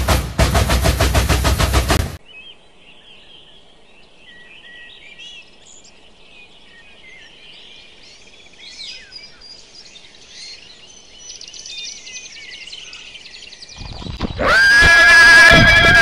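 Birds chirping and singing over a faint background hiss, with short, scattered calls and trills. Loud percussive music stops about two seconds in, before the birds begin, and a loud, sustained pitched sound begins near the end.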